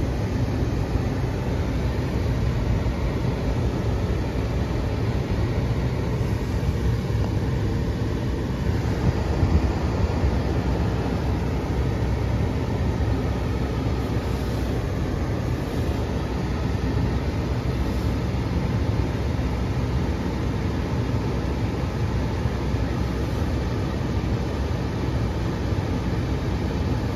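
Istobal M'Start rollover car wash running over the car, heard from inside the cabin: a steady rushing machine noise.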